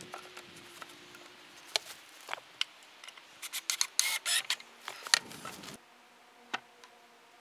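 Scattered clicks and knocks with a brief scraping rush about four seconds in, as of things being handled and worked; the sound cuts off suddenly near six seconds, leaving a faint steady hum.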